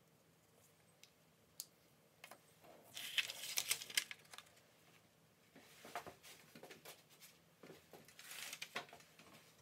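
A sheet of paper rustling as it is picked up and carried away with keys, coins and other small pocket items lying on it, in three bouts of rustling, the first about three seconds in.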